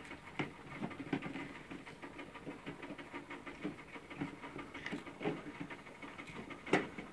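Curly-coated retriever puppies eating together from plastic bowls: a busy, irregular patter of small clicks and smacks, with one louder knock near the end.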